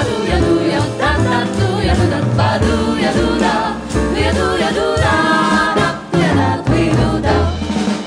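A jazz vocal quartet of three women and one man singing together in harmony, accompanied by piano, double bass and drum kit.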